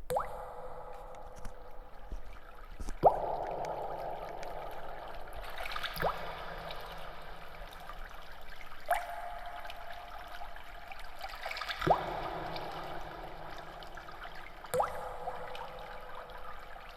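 Recorded ambient track: a steady trickle of water with a ringing note struck about every three seconds, each ring holding until the next strike.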